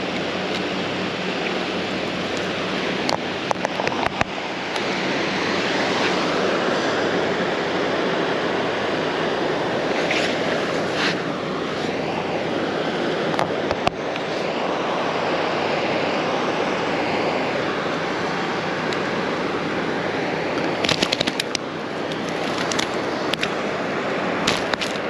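Steady rushing wash of ocean surf, with a few sharp crackling clicks scattered through it and a small cluster of them about three-quarters of the way through.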